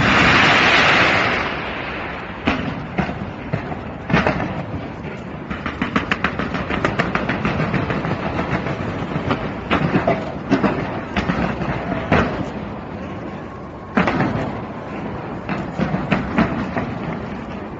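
Fireworks display: a loud burst at the start, then a long run of rapid crackling pops with sharper bangs every second or two.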